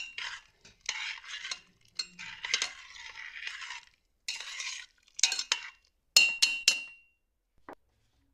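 Metal utensil scraping and stirring against cookware in several stretches, then three sharp ringing clinks of metal on a pot or dish, and a small knock near the end.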